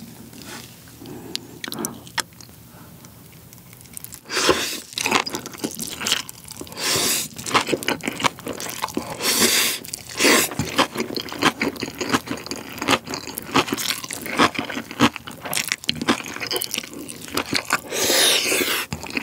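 Close-mic eating: a mouthful of Chapagetti black-bean noodles with spicy cabbage kimchi slurped in and chewed. After a few small clicks, the slurping and chewing start about four seconds in and run in a dense string of wet, crunchy bursts, with a longer slurp near the end.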